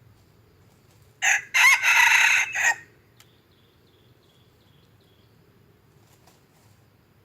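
Red junglefowl rooster crowing once close by, a short clipped crow of about a second and a half that opens with a brief note. Faint, rapid insect chirping follows.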